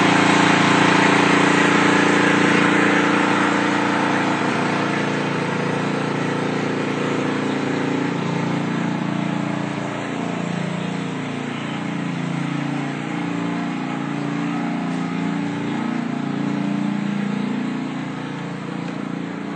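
Capitol Machine Model 70 insulation blowing machine running, blowing loose-fill fiberglass through its hose with a steady mechanical drone. It grows gradually fainter over the second half, its pitch wavering slightly.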